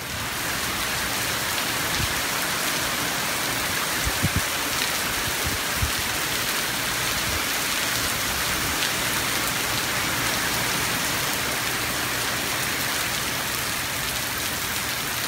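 Heavy hurricane rain pouring down steadily, with a few faint low thumps in the first few seconds.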